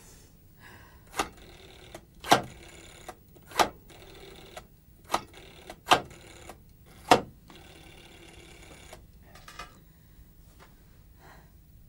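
Rotary telephone being dialled by finger: about six sharp clicks, each followed by the ticking whirr of the dial spinning back.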